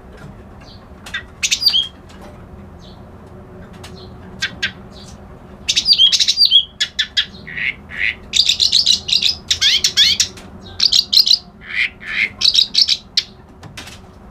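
White-browed 'kerak basi' reed warbler singing: a few short calls, then from about the middle a long run of rapid, scratchy chattering phrases, over a faint steady low hum.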